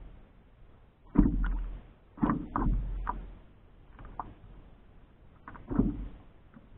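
Small waves slapping against the hull of a stand-up paddleboard, heard through a camera mounted on the board: about five sudden splashy knocks at irregular intervals, each fading within about half a second.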